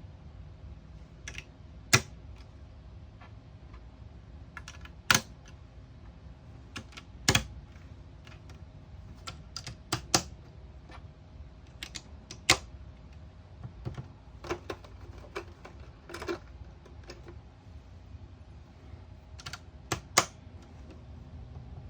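About twenty sharp, irregular taps, some single and some in quick pairs, over a faint steady electronic hum. The taps trigger a Snap Circuits sound circuit's microphone.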